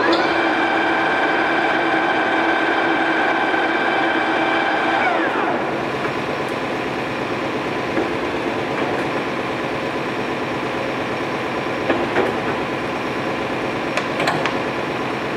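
Geared headstock of a Toolmex TUR-630A engine lathe whining steadily as the spindle turns, then winding down about five seconds in, the whine falling in pitch as the chuck coasts to a stop. A plainer machine hum carries on after, with two short knocks as control levers are worked.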